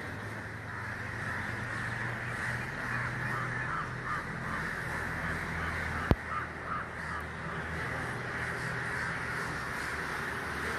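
A flock of crows cawing, many calls overlapping, over a steady low hum. There is one sharp click about six seconds in.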